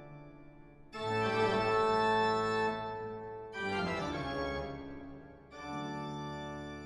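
Slow music of three long held chords in turn, one entering about a second in, the next a little after the midpoint, the last near the end, each fading.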